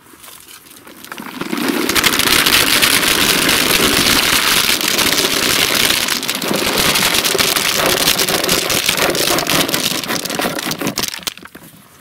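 Hundreds of wild pecans and hickory nuts in their shells poured from a cardboard box into a plastic mesh basket of nuts: a dense, steady rattle and clatter of nut on nut. It builds up over the first couple of seconds and thins out to scattered clicks near the end as the box empties.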